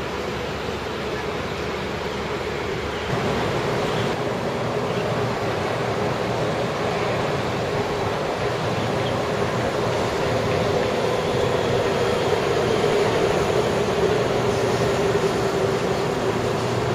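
Singapore MRT train running along an elevated concrete viaduct, a steady rumbling rush over background city noise, growing louder about three seconds in and loudest past the middle.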